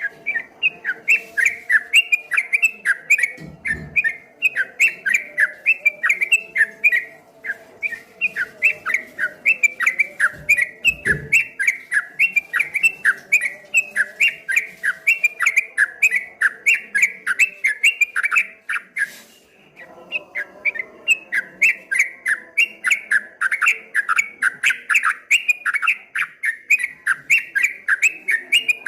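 Yellow-vented bulbul (trucuk kebo) singing a long, fast, rolling chatter of short notes, about three a second. This is the 'ropel' song that bird keepers call 'ngombak banyu' (water waves). It breaks off briefly about two-thirds of the way through and then resumes.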